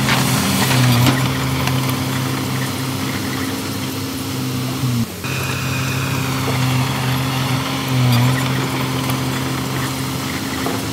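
Diesel engine of a small D20 bulldozer running steadily under work, its pitch sagging briefly about a second in and again about eight seconds in. The sound cuts out sharply for a moment about five seconds in.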